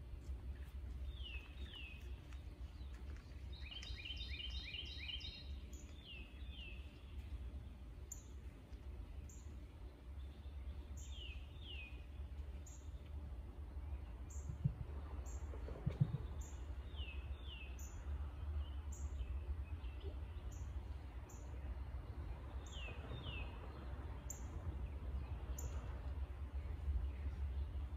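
Several songbirds calling. One repeats a pair of quick falling notes every five seconds or so, one gives a brief rapid trill about four seconds in, and high, thin notes repeat about once a second from about eight seconds on. Beneath them runs a steady low rumble, with two soft knocks near the middle.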